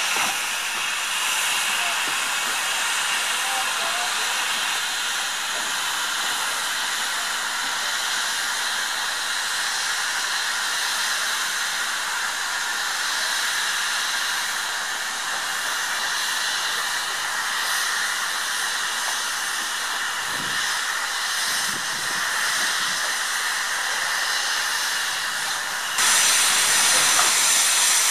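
Steam hissing steadily from LNER Class Y7 0-4-0T tank engine No. 985, with no exhaust beat. About two seconds from the end it turns suddenly to a louder rush of steam, as clouds pour out low at the front around the cylinders, typical of open cylinder drain cocks.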